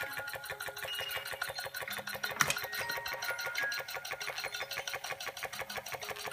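Toy steam engine running fast with a rapid, even chuffing clatter, belt-driving a Carette tin organ-grinder toy whose thin organ notes sound faintly over it. One sharp click about two and a half seconds in.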